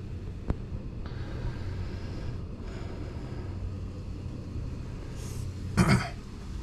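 Low, steady rumble of wind buffeting the microphone, with a single sharp click about half a second in and a short loud burst of noise near the end.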